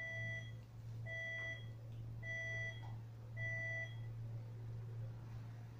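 Short electronic beep repeating about once a second, four times, then stopping; each beep is a steady two-tone sound, one low and one high. A steady low hum runs underneath.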